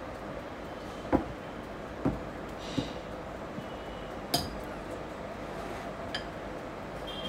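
Spatula knocking and scraping against a glass mixing bowl while stirring a thick batter: about five separate short taps spread out, the loudest about a second in and past the four-second mark.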